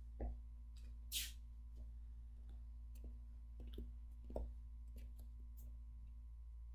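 Quiet room tone: a steady low hum with a few faint scattered knocks and clicks, and one brief soft rustle about a second in.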